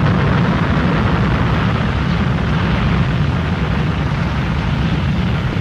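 Rough sea: big waves breaking and churning, with strong wind rumbling on the microphone. The sound is steady and loud throughout.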